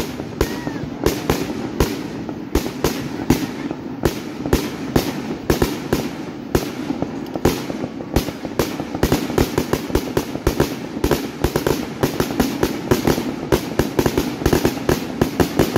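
Fireworks display: a rapid, unbroken barrage of shell bursts and sharp reports, coming faster and denser in the second half.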